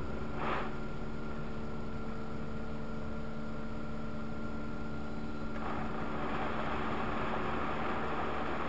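Automatic car wash heard from inside the car's cabin: a steady hum of machinery, joined about five and a half seconds in by a louder hiss of water spraying over the car.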